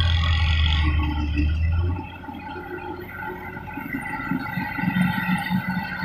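Kubota DC-93 combine harvester running steadily at a distance, a continuous mechanical drone with a steady whine on top. A heavy low rumble sits under it and drops away about two seconds in.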